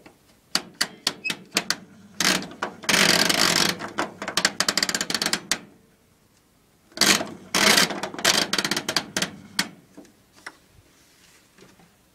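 Mechanical timer dial on a Zanussi tumble dryer being turned by hand, clicking as it goes round. First a scatter of single clicks, then two long runs of rapid clicks, one starting about two seconds in and one about seven seconds in, then a few last faint clicks.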